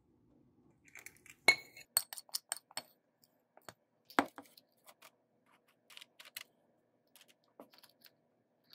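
Metal spoon clinking and scraping against a parchment-lined metal baking pan while spreading melted candy coating. It makes a scattered series of light taps and clicks, the sharpest about one and a half seconds in with a brief metallic ring, and another strong one about four seconds in.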